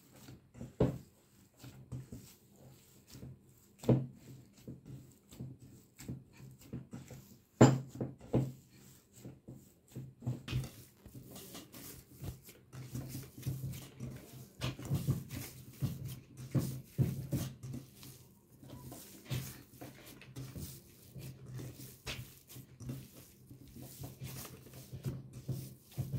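Hands kneading soft, oily cookie dough in a bowl: irregular squishing and pressing, with a few sharp knocks, the loudest about eight seconds in.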